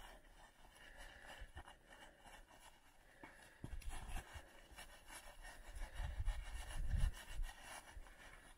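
Faint scraping and rubbing of a gloved hand pressing against a cut snow block, checking whether the block has come loose along the fractured weak layer. Low rumbling thuds come in the second half.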